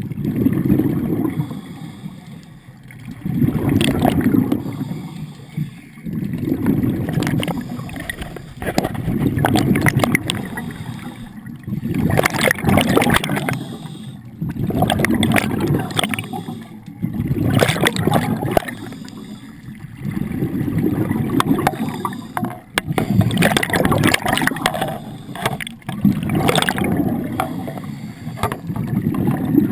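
A scuba diver breathing through a regulator, heard underwater: about every three seconds a burst of bubbling and gurgling from the exhaled air, with quieter gaps between breaths.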